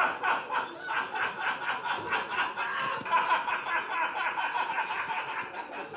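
Men laughing together after a joke, in a quick, rapid ha-ha rhythm.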